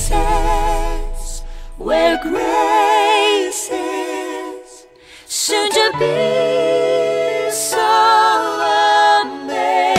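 Background song: a voice singing slow phrases of long held notes with vibrato, with little accompaniment and a short pause about halfway through.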